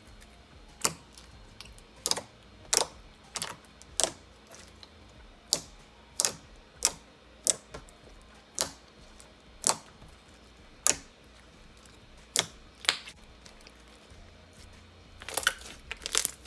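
Thick slime being squeezed and pressed, giving off a string of sharp, irregular clicks and pops, with a quicker run of them near the end.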